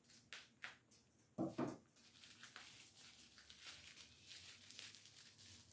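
Scissors cutting into mail packaging, heard faintly: a few small clicks, a louder rustle about a second and a half in, then soft crinkling and tearing as the packaging is opened.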